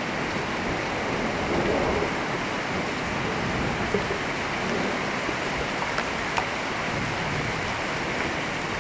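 Steady rain falling during a thunderstorm, an even hiss, with a few faint clicks around the middle.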